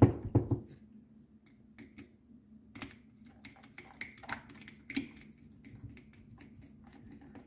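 A screw being driven by hand with a screwdriver into a steering-wheel paddle shifter mount. A few sharp knocks come right at the start, then scattered light clicks and ticks as the screw is turned.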